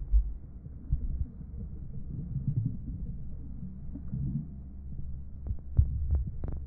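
Muffled underwater sound picked up through a submerged camera housing: a low rumble of water surge with irregular dull thuds, and a few sharp clicks near the end.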